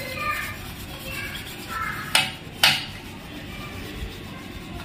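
Two sharp metallic clinks about half a second apart, about two seconds in, from the sewing machine's lower shaft and its fittings knocking as the rod is worked by hand while being flushed with kerosene.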